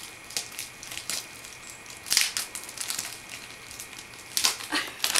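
Plastic shrink-wrap on a toy box crinkling and crackling in irregular bursts as a baby handles it and chews at it. The loudest crackles come about two seconds in and again near the end.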